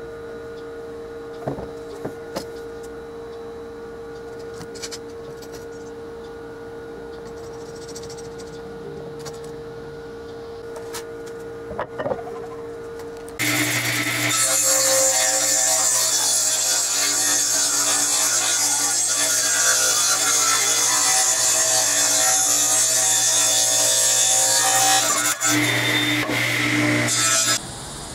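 Table saw running and cutting a pine board; the sound starts suddenly about halfway through and stops shortly before the end. Before it there is only a faint steady hum with a few light knocks.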